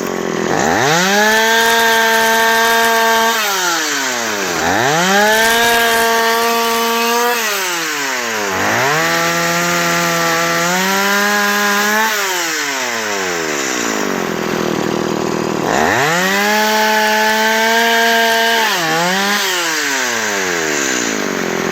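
Stihl two-stroke chainsaw revved up to full speed and held there for about three seconds at a time, then dropping back to idle, four times over, as it cuts wood.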